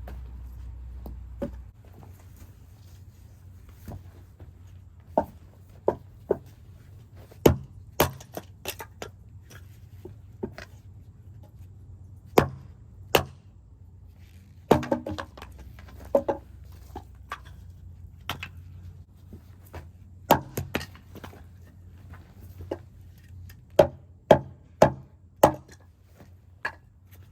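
Hatchet chopping wood: sharp strikes at uneven intervals, a second or several apart, sometimes two in quick succession.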